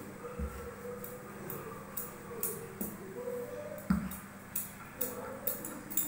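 Bangles jingling in quick, repeated bursts on the wrist as a wooden rolling pin rolls out dough on a tabletop, with a single knock of the pin about four seconds in.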